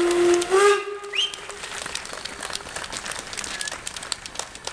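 Steam whistle of the DR class 50 steam locomotive 50 3501 sounding a long blast that steps up slightly in pitch and cuts off just under a second in. It is followed by a quieter hiss of steam and a run of irregular clicks as the locomotive moves off.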